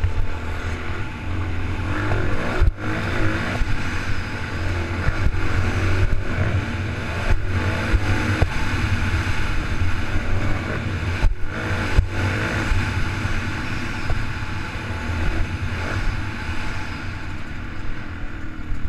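Motocross dirt bike engine running hard under throttle, its note rising and falling, with a few very short breaks where the sound drops out.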